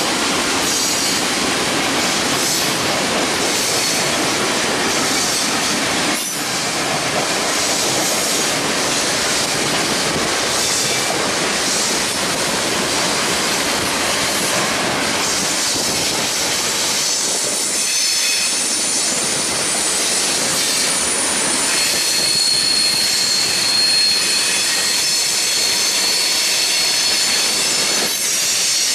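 Freight train cars rolling past on jointed track, hopper cars and then tank cars, in a steady loud rush of wheel and rail noise. High, steady wheel squeal comes through, strongest in the second half.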